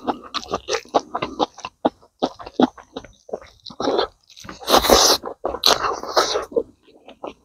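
Close-miked eating sounds of a man chewing rabbit meat and rice eaten by hand: many short, sharp mouth clicks and smacks, with one louder, longer noisy sound about five seconds in.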